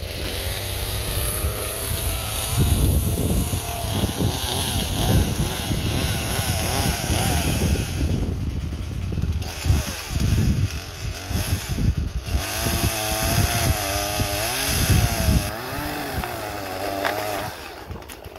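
Gas chainsaw running at full throttle and cutting wood, its engine pitch sagging and climbing again and again as the chain loads in the cut.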